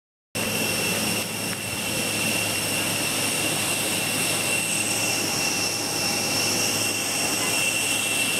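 Jet aircraft engine noise with a steady high-pitched whine over a constant rushing hiss, cutting in suddenly a moment in and holding steady.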